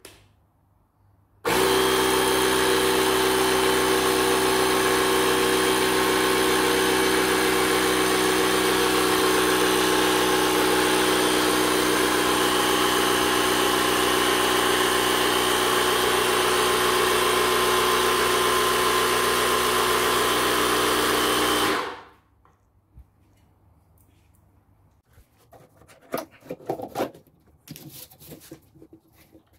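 Parkside PKA 20-LI-A1 cordless inflator/compressor pumping up a bicycle tyre: a click, then about a second and a half in the compressor starts and runs steadily at an unchanging pitch for about twenty seconds before cutting off suddenly. Quieter, irregular handling clicks and rustles follow.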